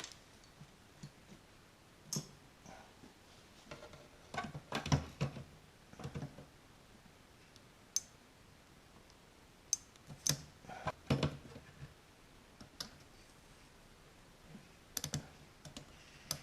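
Irregular small clicks, taps and knocks of hand tools (pliers and a soldering iron) working at wires and standoffs inside an amplifier chassis during desoldering. They come in little clusters, the loudest about a third of the way in and again around two-thirds through.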